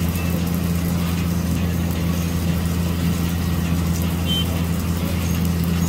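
Diesel engine of a Vögele asphalt paver running steadily while paving, a continuous low drone.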